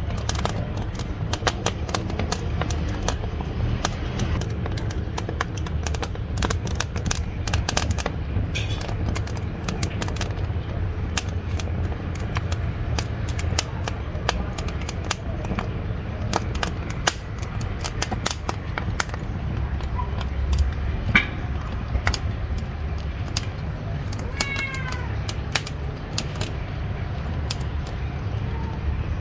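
Wood fire in a wood-burning cooking stove, crackling and popping irregularly over a low steady rumble of the burning firebox.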